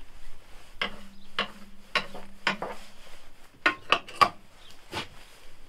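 A hand scraper scraping and knocking against the van's floor under the cab seat, about eight sharp scrapes and clinks spaced irregularly, loudest a little after the middle. A faint steady low hum runs under the first half.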